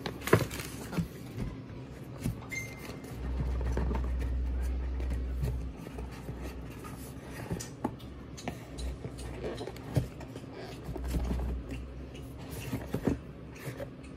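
Cardboard product box being handled and opened, with scrapes and light knocks as it is turned and its lid slides off. A low rumble comes in twice, a few seconds each time.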